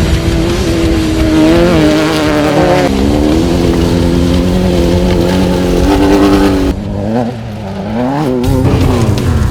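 Off-road race vehicle engine running hard under throttle, its pitch climbing and then dropping sharply about three seconds in before holding steady. Near seven seconds in the sound cuts abruptly to a quieter engine revving up and down.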